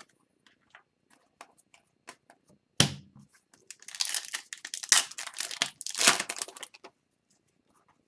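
Foil wrapper of an Upper Deck hockey card pack crinkling and tearing as it is opened, after light clicks of cards being handled and a single knock about three seconds in.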